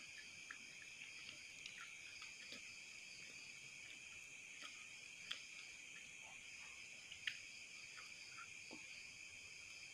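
Faint, steady chorus of night insects such as crickets, with two small clicks about five and seven seconds in.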